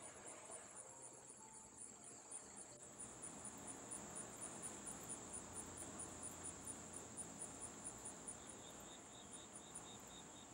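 Faint crickets chirping: a steady high trill with a regular pulsing chirp about four times a second, and a second, lower chirping joining near the end.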